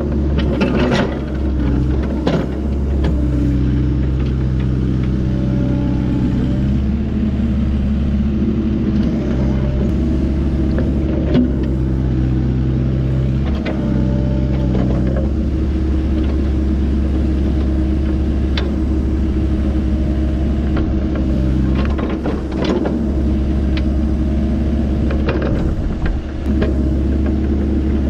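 Excavator's diesel engine running steadily under load, its hydraulic pitch stepping up and down as the machine works, with occasional sharp knocks scattered through.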